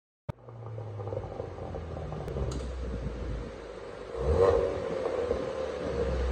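Ford Mustang idling through an aftermarket valved exhaust with the valves closed (quiet mode), a low steady rumble. The sound begins abruptly with a click about a third of a second in, and the engine gives a short blip of revs about four seconds in.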